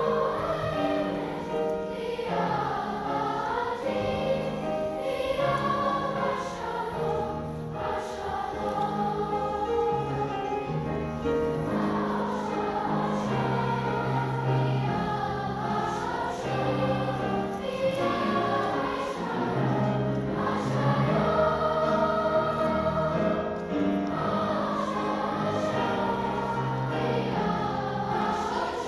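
Large children's choir singing with grand piano accompaniment.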